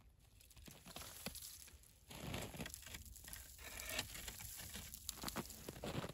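Irregular crunching and crackling of snow and ice slabs being handled and pressed into place, with scattered small cracks. It grows louder after about two seconds.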